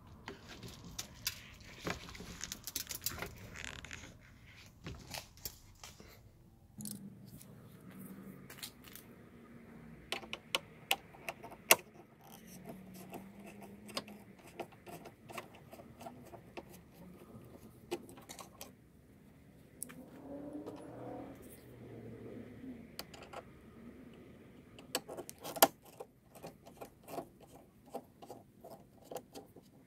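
Scattered clicks, taps and scrapes of hand tools on plastic door trim and metal, as a screwdriver and a plastic pry tool work at the trim around an Audi S3's rear door window. A longer stretch of rustling and scraping fills the first few seconds.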